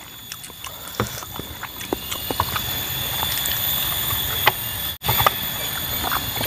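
Small scattered clicks and rustles of hands at plastic food containers and a plastic water bottle during an outdoor meal, over a steady high insect drone.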